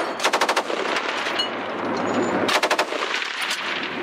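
Vehicle-mounted automatic weapon firing two short bursts of rapid shots about two seconds apart, each burst ringing out in a rumbling echo.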